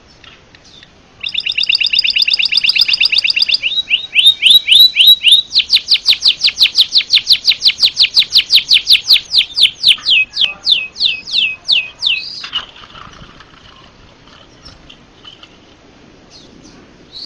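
White-headed munia (pipit haji) singing a canary-like song: a fast high trill, then a long run of quick sweeping notes that slow down before stopping about twelve seconds in.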